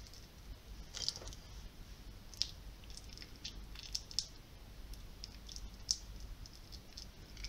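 Faint, scattered soft squelches and small clicks of fingers pressing grated cheese and garlic filling into a slit in raw chicken leg meat.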